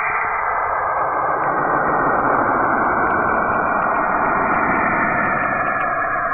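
NASA sonification of Saturn: spacecraft radio-wave recordings turned into sound, heard as a steady, dense hiss like radio static. A deeper rumble fills in beneath it about a second in.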